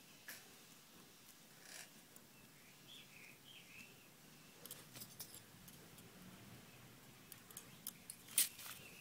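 Faint bird chirps in the first half, then a scatter of small sharp clicks and ticks, the loudest a little before the end.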